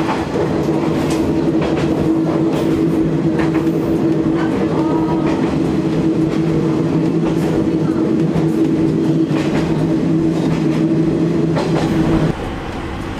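Isumi Railway diesel railcar running under power: a steady engine drone with occasional clicks of the wheels over rail joints. About twelve seconds in, the engine eases off and the drone drops away.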